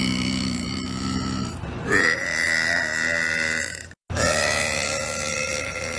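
A run of long, drawn-out belches: a low one ending about a second and a half in, a wavering one from about two to four seconds, then a sudden cut and another long belch.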